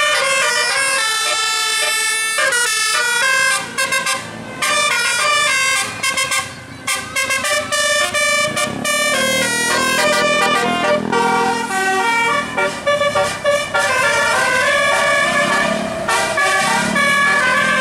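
Telolet musical bus horns (Basuri-type multi-trumpet air horns) playing tunes of quickly changing notes, broken by short pauses a few seconds in.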